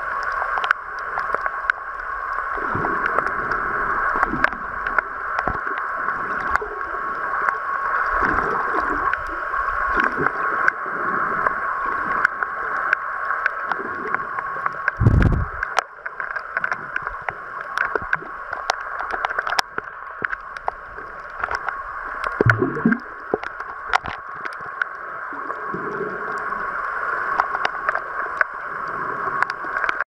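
Underwater sound picked up by a camera in its waterproof housing: a steady muffled hiss with many scattered clicks and a few low thuds, the loudest about fifteen seconds in.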